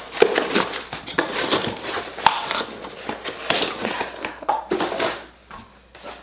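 Packaging and products handled during an unboxing: irregular rustling, clicks and light knocks of cardboard and plastic items being moved and set down.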